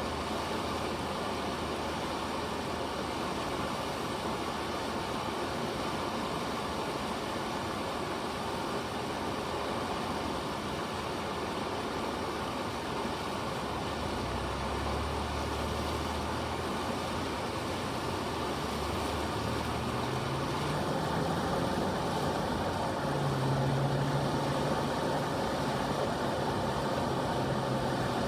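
Steady rush of river water at a surfing wave, with a low engine-like hum coming in about halfway through, rising in pitch and then holding steady and a little louder near the end.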